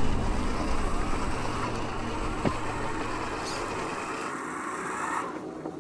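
Motor of a 1/10-scale RC crawler truck whining as it creeps down a dirt slope, its pitch rising and falling with the throttle.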